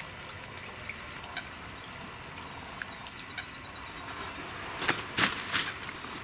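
Quiet marsh ambience with a few faint, short chirps scattered through it. About five seconds in come three brief, louder rustles as the camera is swung through the brush of the blind.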